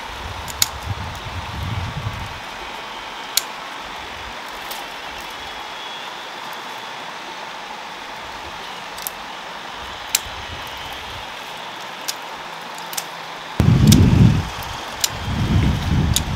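Hand pruning shears snipping dry bougainvillea twigs: single sharp clicks every second or few seconds. Dry branches rustle and crackle as they are handled and pulled out, loudest near the end.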